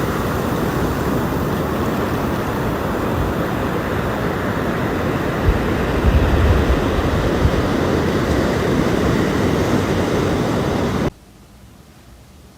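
Loud, steady rushing noise with low rumbling gusts, like wind buffeting the microphone. It cuts off abruptly about eleven seconds in, leaving faint room hiss.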